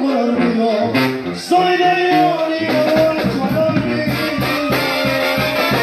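Live band music led by brass and clarinet, playing an instrumental passage with no lyrics sung. A steady beat of about three to four strokes a second comes in about three seconds in.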